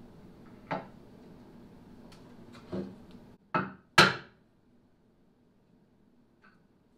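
Hammer tapping a pointed punch set in the centre of a stainless drink holder, marking the hole centre on a plywood console top before drilling. Four sharp taps, the last and loudest about four seconds in.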